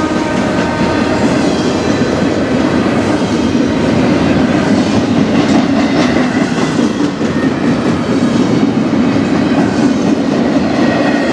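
Double-stack intermodal well cars of a freight train rolling past close by: a steady loud rumble of steel wheels on rail, with a few sharp clicks about halfway through.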